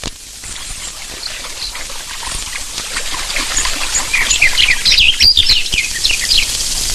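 Birds chirping: many short, high calls over a faint background hiss, growing busier and louder over the second half.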